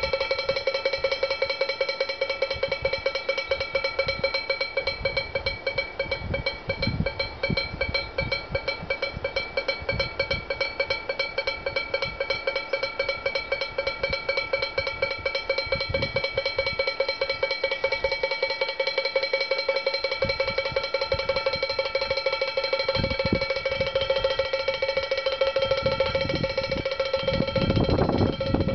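Wind-driven bird scarer: two wooden clappers on leather straps knocking alternately on the bottom of a chamber pot, a rapid, continuous clatter with a steady bell-like ring. A low rumble swells near the end.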